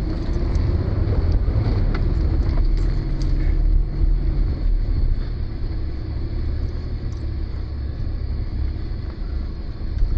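Vehicle engine and drivetrain rumbling at low speed, heard from inside the cab. A few knocks and rattles come in the first few seconds as it bumps through muddy ruts.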